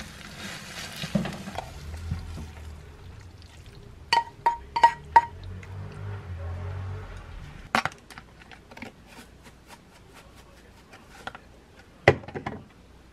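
A wooden spatula stirring sauced pasta in a frying pan, over a low hum, followed by four quick ringing clinks of a utensil against cookware. Later come single sharp knocks of cookware and tableware as the pasta is plated.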